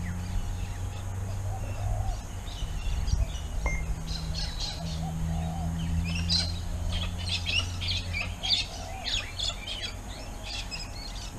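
Birds chirping and calling, busiest from about four seconds in, over a low steady hum that fades out about eight seconds in.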